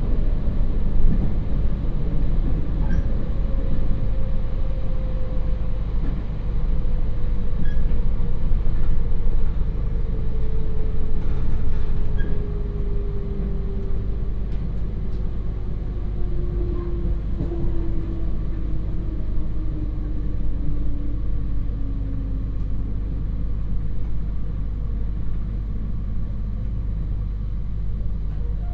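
JR Hokkaido 721 series electric train (KuMoHa 721 motor car, MT61 DC motors, 4.82 gear ratio) decelerating, heard inside the passenger cabin: a whine from the gears and motors falling slowly in pitch as the train slows, over a steady low rumble of wheels and hum. The sound gets a little quieter about twelve seconds in.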